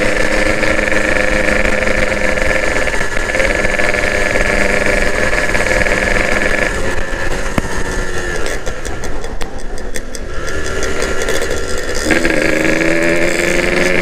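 Two-stroke Yamaha RX motorcycle engine running at a steady cruise, heard from the rider's seat. About seven seconds in, the throttle eases off and the engine note sinks as the bike coasts. About twelve seconds in, the engine pulls back up to its cruising pitch.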